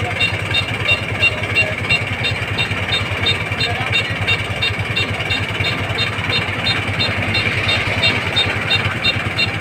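Kubota corn combine harvester running steadily, a diesel engine drone with a regular high tick about four times a second.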